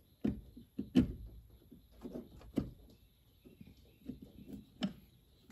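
Clicks and light scrapes of a long screwdriver working the PV input terminal block of an EG4 18kPV inverter as a ferrule-crimped wire is pushed in. Sharper clicks come about a second in, at around two and a half seconds, and near the end.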